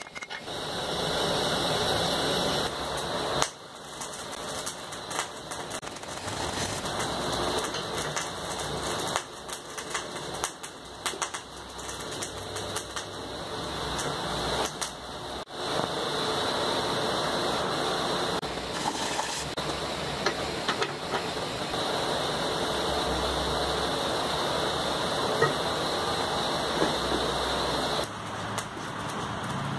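Steady rushing of a blacksmith's fire under forced air, with frequent small crackles and clicks. It dips briefly about three and a half seconds in and again near fifteen seconds.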